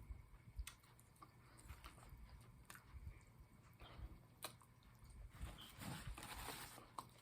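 Near silence with faint mouth chewing sounds and a few light clicks, one every couple of seconds.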